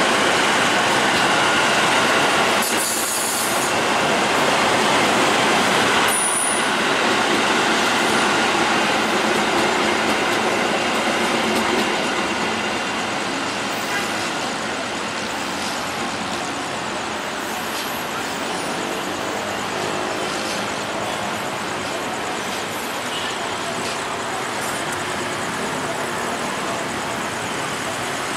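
Passenger train coaches rolling past on the rails, a steady wheel-and-rail noise that eases somewhat after about twelve seconds as the end of the train moves away.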